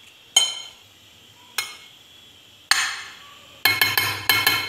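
Metal spoon clinking against a glass baking dish as pasta is pushed around and levelled in it: three separate clinks, then a quick run of clinks near the end.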